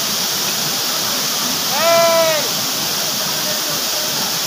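Waterfall pouring steadily into a rock pool, a constant rushing of falling water. About two seconds in, a person gives one short shout that rises and then falls in pitch.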